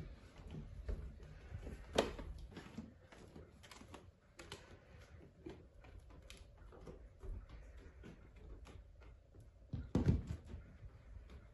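Light footsteps and small clicks on bare wooden floorboards, with a sharp click about two seconds in. Near the end comes a soft, louder thump as a cat jumps up onto a bed.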